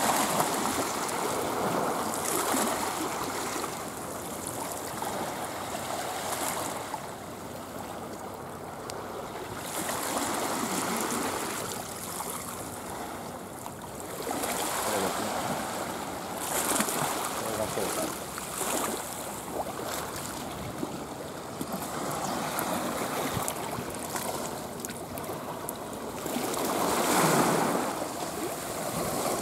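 Sea waves washing and lapping at a rocky shore, the rush of water swelling and falling back every few seconds.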